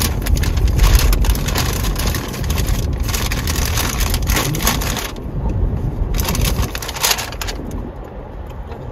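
Car tyres crunching over gravel, with the low rumble of the car rolling slowly. The crunching thins out about five seconds in, with one more short stretch around seven seconds.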